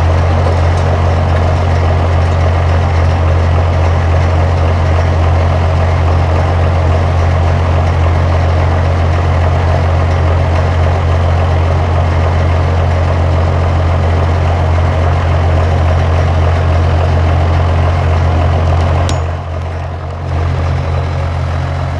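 John Deere 7515 tractor's diesel engine running steadily at constant speed while pulling a disc harrow. Near the end the engine note eases off and gets quieter.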